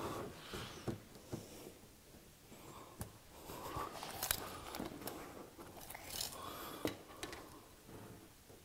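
Quiet handling noises: light clicks and taps with short rustles of plastic wrap and cardboard as a skylight in its box is handled.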